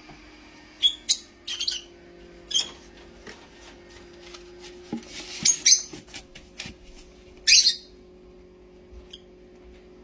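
Pet parrot giving short, sharp chirps and squawks, about half a dozen scattered through, over a steady low hum.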